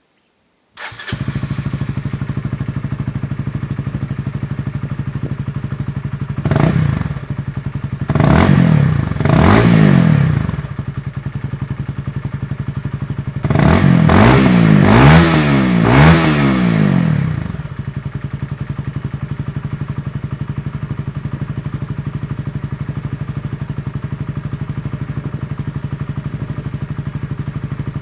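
Honda CBR 125R's single-cylinder four-stroke engine idling through an imitation Akrapovic aftermarket silencer, blipped three times and then revved several times in a row before settling back to a steady idle.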